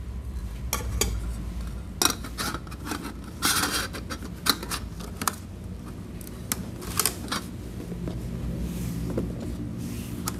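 Aluminium camping cookware clinking and knocking as a nested pan, pots and lid are packed back together: a string of irregular light knocks, with a short scrape about three and a half seconds in.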